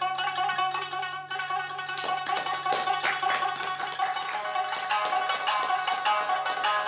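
Tsugaru shamisen being played: rapid plucked notes struck hard with the plectrum, each stroke with a sharp percussive slap on the strings.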